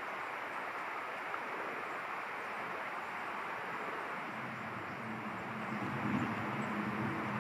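Steady rushing background noise, with a low engine hum coming in and growing louder about two-thirds of the way through.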